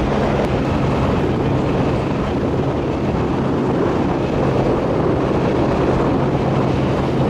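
Outboard motor of an inflatable boat running at a steady cruising speed, with a constant low engine tone under a rush of wind and water noise.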